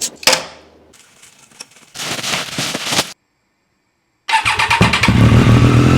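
Triumph Street Triple's three-cylinder engine, breathing through a MIVV Delta Race exhaust, being started: it cranks and catches about four seconds in, then settles into a steady, loud idle.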